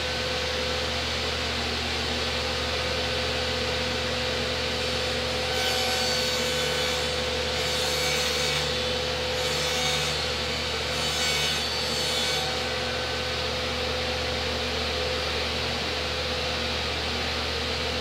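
Table saw running and cutting along the edge of a plywood door panel, a steady motor hum under a hiss of blade cutting wood. The cutting noise swells several times in the middle as the panel is pushed through.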